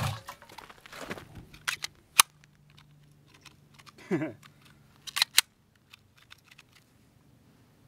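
Mud-fouled, water-rinsed Glock 19 pistol being worked by hand: a few sharp metallic clicks of the slide and trigger, with no shot fired, a dead trigger that the shooter puts down to mud in the striker. A brief vocal sound about four seconds in.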